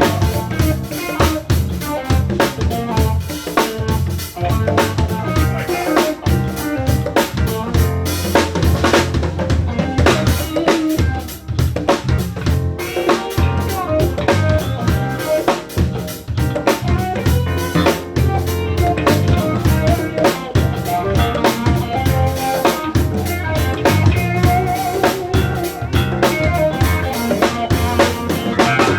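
Live band playing: a drum kit with kick drum and snare or rimshot hits keeps a steady beat over low bass notes and other pitched instruments.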